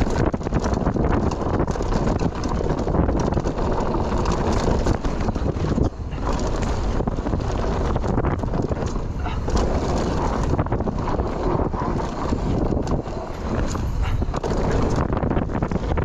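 Wind buffeting an action camera as a mountain bike runs down a dry, dusty woodland trail, with tyre noise and frequent knocks and rattles from the bike over bumps.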